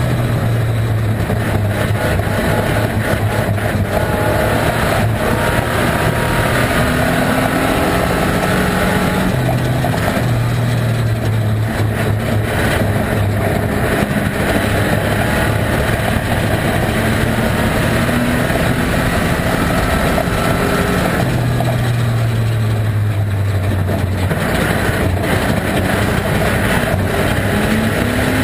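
Volvo estate banger car's engine running hard during a race, heard from inside the stripped-out cabin amid road and body rattle. The engine note drops and climbs again several times as the driver lifts off and accelerates.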